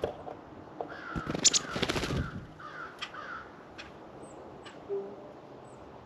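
Birds at a feeder: a burst of loud knocks and rustling close to the microphone about a second in, overlapped by four harsh calls in quick succession, then a few short high chip notes from small birds.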